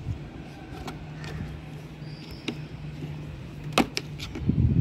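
Screwdriver tip clicking against the plastic housing of a Honda Activa's indicator switch as the old switch is pried out of the handlebar cover: a few sharp, separate clicks over a steady low hum, with a low thump near the end.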